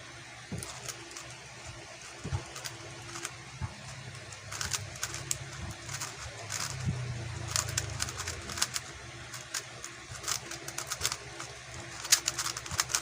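Plastic speedcube (QiYi X-Man Tornado V2) being turned fast in a timed solve: rapid clicking and clacking of the layers in quick bursts, with short pauses between them and a dense flurry near the end.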